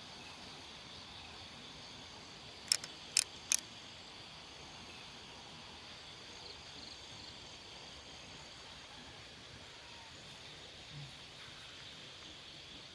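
Steady night chorus of insects such as crickets, with three short, sharp clicks in quick succession about three seconds in.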